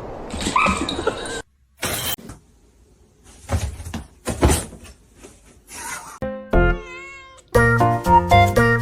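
Domestic cats meowing in a string of short separate sounds with near-silent gaps between, including one long wavering call near the end; music with distinct stepped notes comes in over the last second or so.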